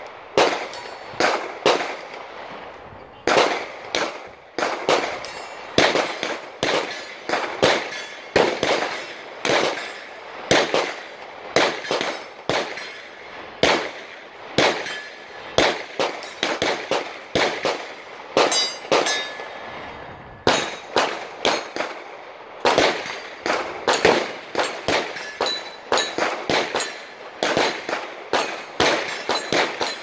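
Gunfire from several shooters at once on a firing range: irregular, overlapping shots, two or three a second, each with a short echo.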